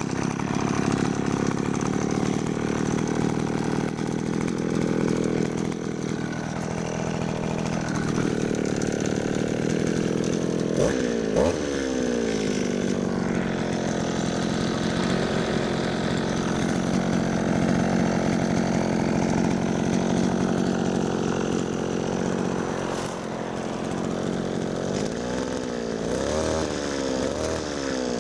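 Mitsubishi TL231 two-stroke brush cutter engine running steadily just after being pull-started, its speed dipping twice early on, then revved up and down about a third of the way in and several times near the end.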